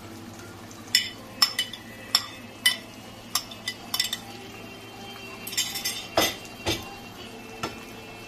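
A metal spoon clinking and scraping against a glass dish as chopped tomatoes are scraped out of it into a frying pan: a string of sharp clinks, then a quick cluster and two heavier knocks a bit past the middle.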